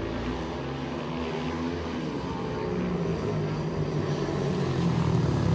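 Several speedway motorcycles racing, their single-cylinder 500 cc methanol engines running together at different, shifting pitches, getting louder toward the end as the pack comes closer.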